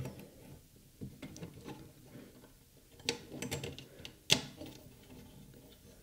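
Small clicks and rustles of a CPU cooler's fan cable being tucked in by hand against the cooler and motherboard, with one sharp click a little over four seconds in.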